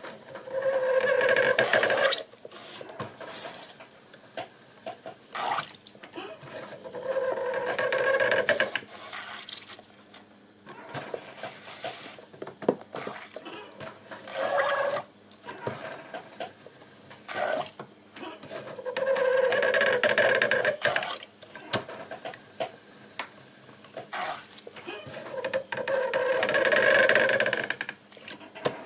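Foot-pedal-driven syringe cleaning rig squeaking on each pump stroke, five long steady-pitched squeaks a few seconds apart, while its needles squirt jets of acetone that splash into a tub of acetone.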